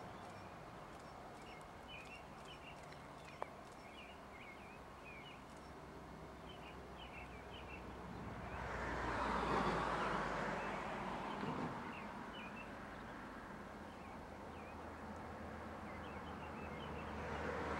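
Small birds chirping over a faint, steady low rumble from the distant train. About nine seconds in, a passing road vehicle swells up and fades away over two or three seconds.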